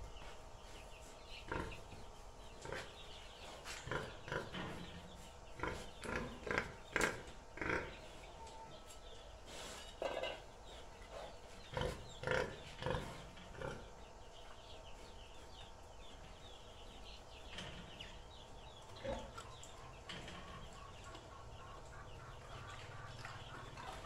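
Domestic pig grunting in short, repeated calls, many in the first half and only a few later, as it waits to be fed; hens cluck faintly in the background.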